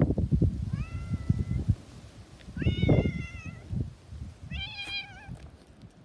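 Domestic cat meowing three times, about two seconds apart; the middle meow is the loudest and longest, and the last wavers in pitch. Low rumbling gusts of wind on the microphone come and go beneath the first two meows.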